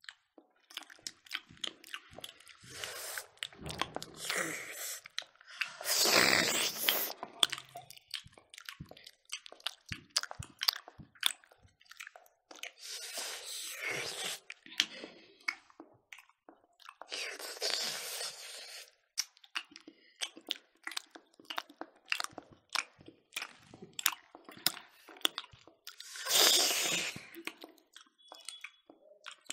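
Close-miked chewing and mouth sounds of people eating smoked pork and rice with their hands: many sharp crunching clicks and smacks, with a few louder noisy stretches of a second or two, the loudest about six seconds in and again near the end.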